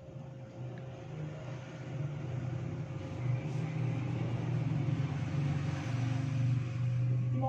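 A low, steady motor hum that swells a couple of seconds in and eases near the end, with a faint constant whine above it.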